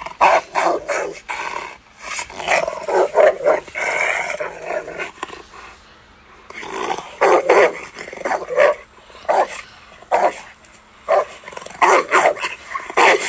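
Dog barking and growling sound effects: a run of short, sharp barks, a longer snarling growl from about two to five seconds in, then a brief lull and another quick series of barks.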